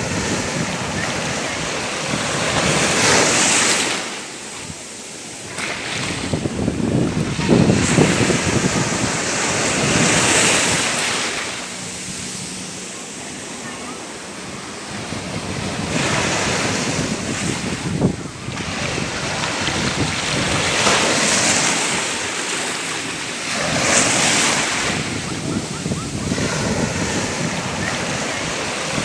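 Ocean waves breaking, the surf swelling and falling back every few seconds, with one sharper splash about eighteen seconds in.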